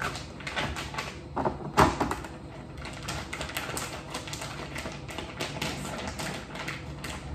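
A countertop vacuum sealer being worked by hand: irregular plastic clicks and taps as its lid is pressed shut and its buttons and latches are pressed, with one sharper click about two seconds in.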